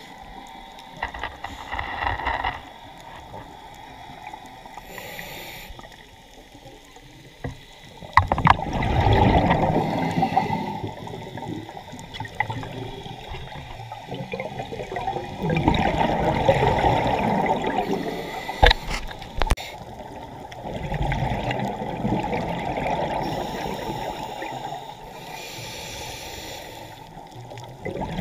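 Scuba regulator exhalation bubbles heard underwater: a bubbling rush in bursts of about three seconds, one with each breath out, with quieter gaps between them and a few sharp clicks.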